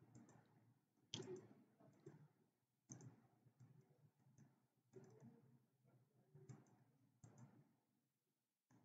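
Near silence, with a few faint, scattered computer mouse clicks.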